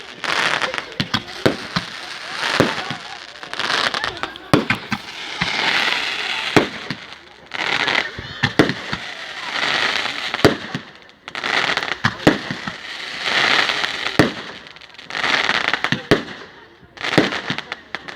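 Fireworks display: many sharp bangs of bursting shells, coming in clusters, between repeated swells of hissing crackle that last a second or so each.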